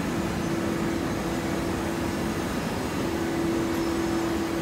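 Hydraulic horizontal baling press running: a steady mechanical hum with a steady whine that breaks off for a moment about halfway through, then resumes.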